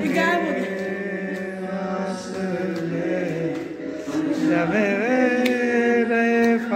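A song playing: a voice sings long, held notes that slide from one pitch to the next over the music.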